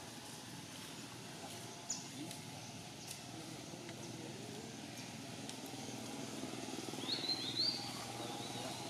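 Steady outdoor ambience among the trees, with a couple of soft clicks and a short run of high chirps about seven seconds in.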